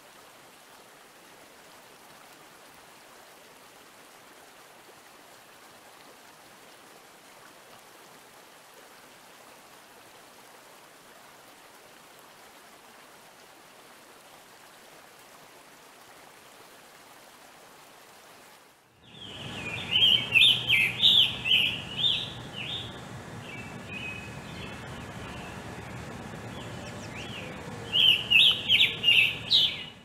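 A faint, steady stream-like hiss, then about two-thirds of the way in a scarlet tanager sings. It gives quick runs of burry, hoarse phrases, one loud run and then softer phrases, and a second loud run near the end.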